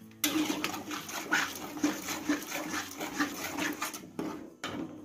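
A spatula scraping and pushing wet ground spice paste across a wok, in rough strokes about twice a second, pausing briefly near the end.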